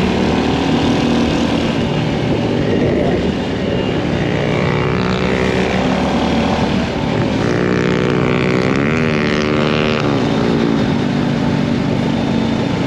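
Single-cylinder engine of a Bajaj Pulsar motorcycle fitted with an aftermarket exhaust, running steadily under way and heard from the rider's seat. About eight seconds in, the engine note rises and falls briefly.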